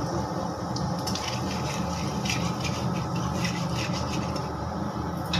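Whole dried red chillies and bay leaves frying in hot mustard oil in a kadai: a steady sizzle with frequent small crackles and pops, as a metal spatula scrapes and stirs in the pan. A steady low hum runs underneath.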